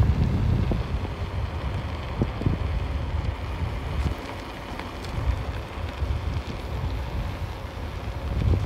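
Wind buffeting the microphone of a moving camera: an uneven low rumble that rises and falls, with road noise from the vehicle and a few light knocks under it.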